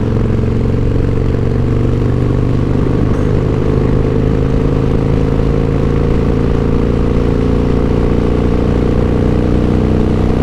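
2002 Harley-Davidson Softail Deuce's Twin Cam 88B V-twin running under steady throttle while riding, its exhaust note slowly rising in pitch as the bike gains speed.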